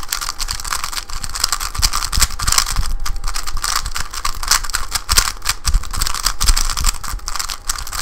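Boron-treated stickerless MoYu Weilong GTS2 3x3 speedcube, very lightly lubed, being turned rapidly: a continuous fast clatter of plastic layers clicking into place.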